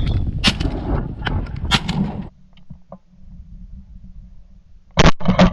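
Two shotgun shots in quick succession near the end, the loudest sounds. Before them, wind buffets the microphone with a couple of sharp clicks, cutting off abruptly about two seconds in.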